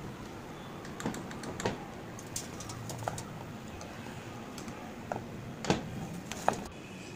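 Hot oil sizzling in a wok as gram-flour fritters fry, with a wire spider strainer clinking and scraping against the metal several times; the sharpest clinks come near the end as the fritters are tipped into a steel colander.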